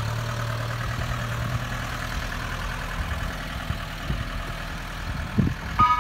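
Ice cream van's engine idling steadily, with a couple of thumps about five seconds in. Just before the end, the van's chimes start to play a tune.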